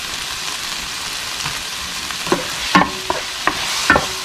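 Diced onion, tomato and garlic sizzling steadily in a frying pan. From about two seconds in, a wooden spoon stirs them, knocking and scraping against the pan several times.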